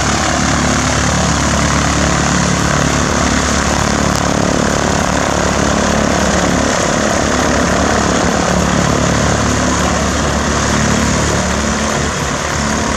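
Cessna 152's four-cylinder Lycoming piston engine and propeller running at taxi power as the plane taxis past, loud and steady, dropping slightly near the end as it moves away.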